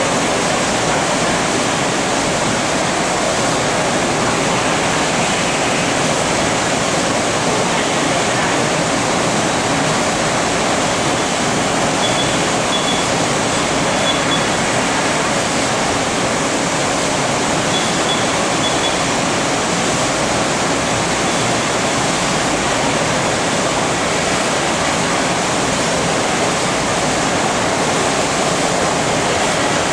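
Steady, dense hiss of factory-floor noise from an electronics assembly line, with a few short high beeps in the middle.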